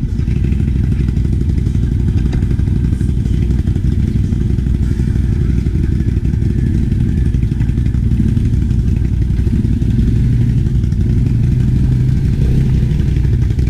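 ATV engine running steadily under way, a dense low drone that swells slightly around ten seconds in.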